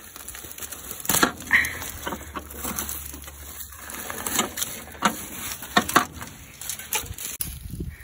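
Metal rod scraping and knocking against a steel trough and stirring dry soybean pods and stalks: irregular clicks, taps and rustles as crop debris wedged in the combine is dug out.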